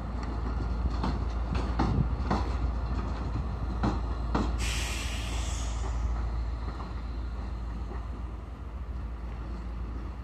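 Class 285 diesel locomotive running light through the station: a steady low diesel drone with irregular knocks of its wheels over rail joints and points. About four and a half seconds in there is a hiss lasting over a second.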